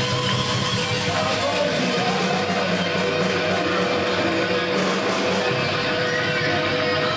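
Live band playing a slow minor blues, with electric guitar over keyboard and bass.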